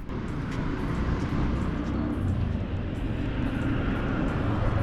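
Steady low rumble of a motor vehicle running on the road close by.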